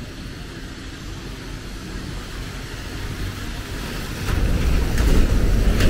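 Road traffic on a wet street, with a steady low rumble and tyre hiss. About four seconds in a double-decker bus passes close, and the rumble gets much louder.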